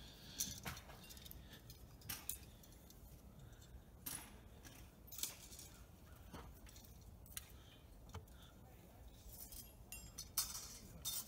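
Faint, irregular metallic clinks and ticks, about ten scattered short sharp ones, the strongest near the end.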